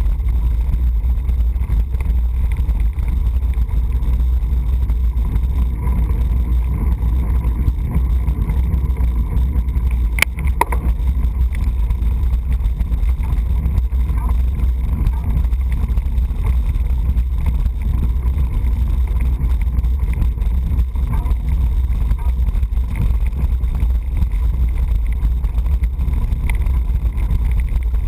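Steady low rumble of wind buffeting the microphone of a bicycle-mounted action camera, with a single brief click about ten seconds in.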